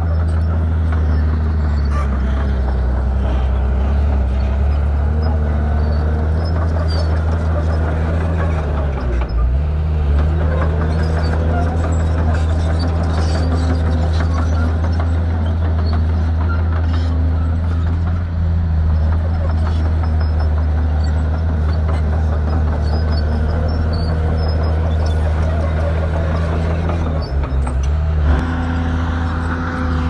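Shantui bulldozer's diesel engine running steadily under load. Its pitch sags and recovers about nine seconds in, and dips again near the end before picking up.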